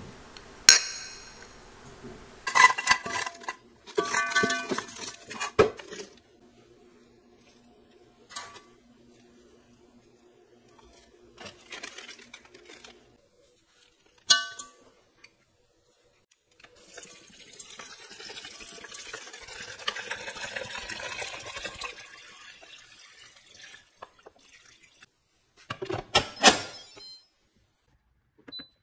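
A run of kitchen sounds: glasses of iced drink clinking together with a ringing tone, knocks and clatter as ingredients go into a pressure cooker pot, and water pouring for about five seconds in the middle.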